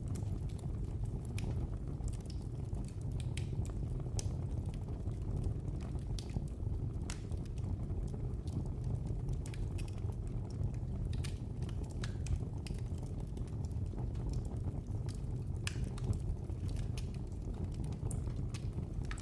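Wood fire burning in a fireplace: a steady low rumble of the flames with frequent irregular crackles and sharp pops.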